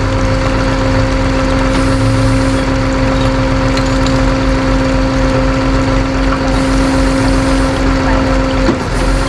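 A motor vehicle running, with a loud, steady whine over a low rumble and a brief wobble in the whine near the end.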